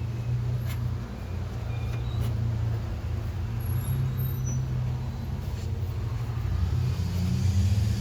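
A steady low engine-like drone, with a few light clicks over it.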